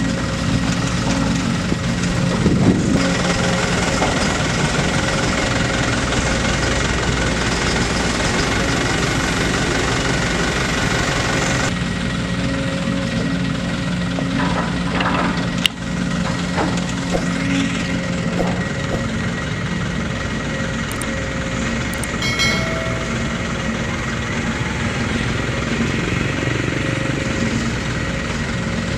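Diesel engine and hydraulics of a Sumitomo SH210 long-reach excavator running steadily under load as it swings and dumps its bucket, with a constant hum and a steady whine. A single sharp click about halfway through.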